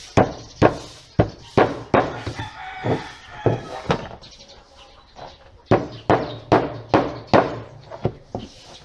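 Hammer driving nails into a wooden drawer, sharp blows about two a second in two runs with a short pause between. A rooster crows once in the background a couple of seconds in.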